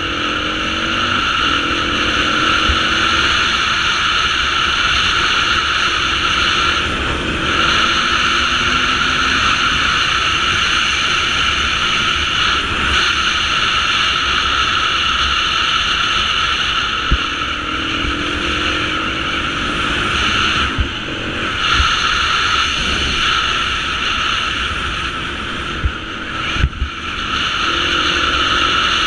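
Beta 350 four-stroke enduro motorcycle engine, heard under a steady rush of wind on the helmet camera as the bike is ridden. The engine note rises and falls several times.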